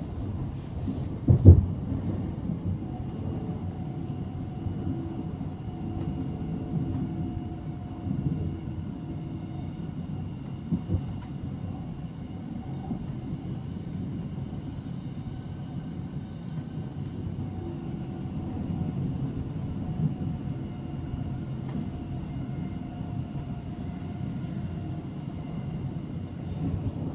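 Interior running noise of a Class 700 'Desiro City' electric multiple unit heard from inside the passenger saloon as it runs through a tunnel: a steady rumble of wheels on rail with a faint steady whine above it. One loud knock about a second and a half in, and a few lighter ones later.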